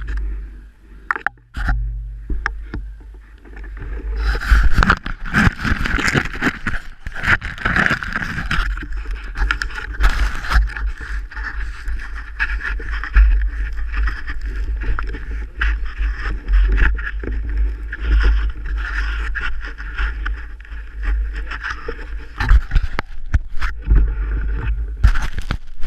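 Mountain bike being ridden over a wet trail: tyre noise and rushing air, with a heavy buffeting rumble and frequent knocks and rattles from the bumps. It gets louder about four seconds in.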